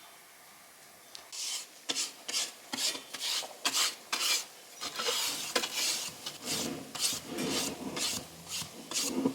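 Rapid, repeated rasping strokes, about three a second, starting about a second in, like a file or grater scraped back and forth by hand.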